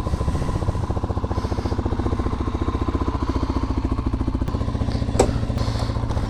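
Single-cylinder four-stroke engine of a 127cc Chinese sportbike (154FMI, a Honda copy) running steadily, its quick even firing pulses throbbing, with a sharp click about five seconds in.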